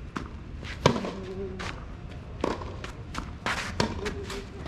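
A tennis rally: sharp racket-on-ball hits about every one and a half seconds, the loudest about a second in. Players' footsteps scuff and shuffle on the court in between.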